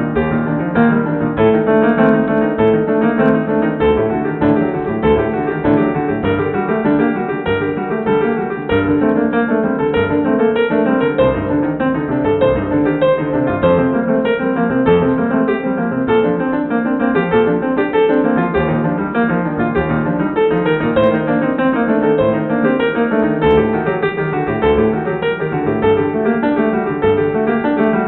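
Piano music playing throughout, a steady flow of many notes.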